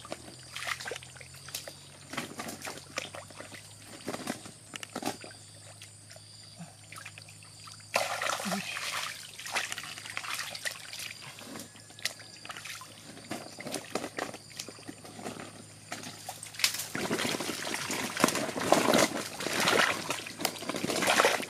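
Hands grabbing at fish in shallow muddy water, with fish thrashing at the surface: repeated splashing and sloshing, getting louder about eight seconds in and again near the end.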